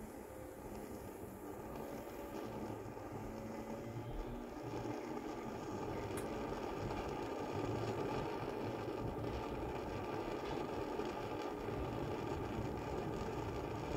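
Barthel petrol camping stove's burner catching and running with a steady rushing hiss, growing louder over the first several seconds as the priming flame dies down and the preheated burner takes over, then holding level.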